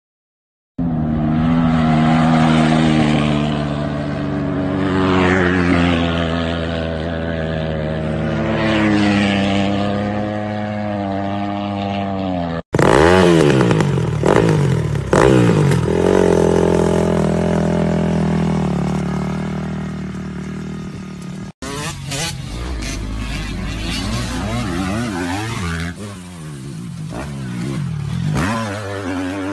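Dirt bike engines running and revving in three short clips, each cut off abruptly, after almost a second of silence. The revs rise and fall, most clearly in the middle clip.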